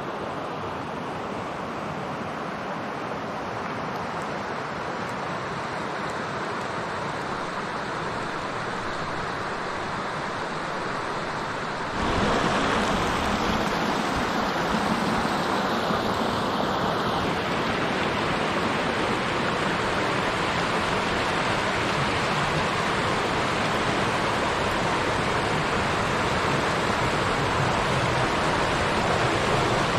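River water rushing over shallow rapids and small cascades, a steady rushing noise that jumps louder about twelve seconds in, as the nearer white water takes over.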